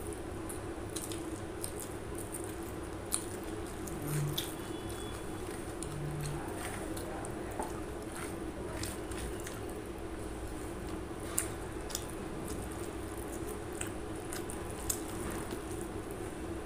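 Hand-eating sounds: wet squishing as fingers knead rice and curry gravy on a steel plate, with mouth-chewing and scattered small clicks, over a steady low hum.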